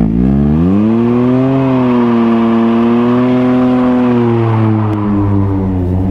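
Can-Am Ryker Rally's three-cylinder engine through an aftermarket Treal Performance exhaust, revved up hard for a burnout. It climbs over the first second or so, holds high and steady for about three seconds, then drops back to a lower steady pitch near the end.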